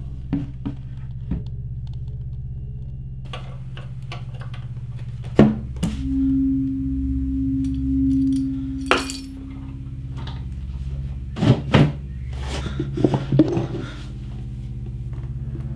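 A low, steady drone of film score under scattered wooden knocks and clicks from handling a lacquered wooden cabinet and pulling its drawer open. The sharpest knock comes about five seconds in, and a cluster of knocks follows near the end.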